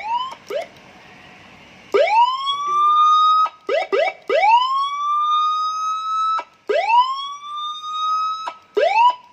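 Electronic siren module driving a speaker, sounding a run of whoops that each rise quickly and level off. A couple of short whoops come first, then longer ones of one to two seconds with a few quick yelps between, then short ones again near the end. The tone is clean, showing the module working normally with a TDA2004 amplifier IC fitted in place of its faulty TDA2005.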